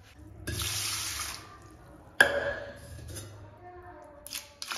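Kitchen tap running in short spells, with one sharp clank of a metal utensil about two seconds in that rings briefly.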